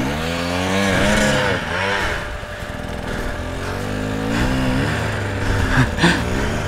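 Two-stroke dirt bike engine revving up and backing off several times, its pitch rising and falling with the throttle.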